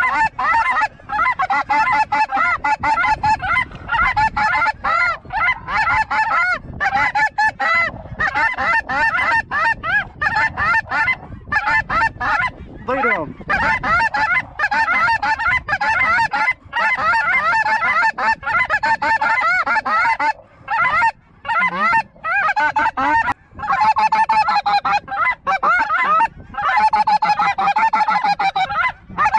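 A large flock of snow geese calling: a continuous din of many overlapping honks.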